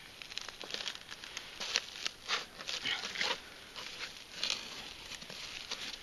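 Irregular crunching and scraping of snow and ice, several short scrapes a second, as a wooden ice-fishing tip-up and its plastic hole cover are handled on the ice.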